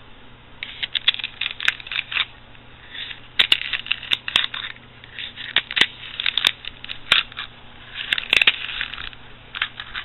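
Crinkly rustling and sharp clicks in several short bouts from a small paper-and-foil powder sachet being handled and scooped from.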